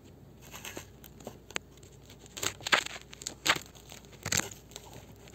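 Camera on a pole scraping and knocking over gritty, sand-covered ceiling boards: irregular rustling and crackling with sharp clicks, a few louder scrapes in the middle.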